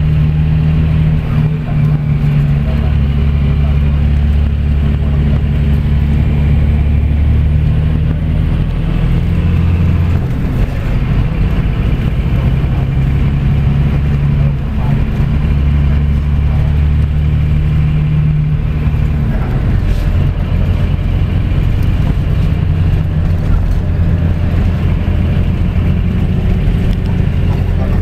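Scania coach's diesel engine running under way, heard from inside the cabin near the rear, with tyre and road noise. The low engine drone changes note twice, about a third of the way in and again a little past halfway.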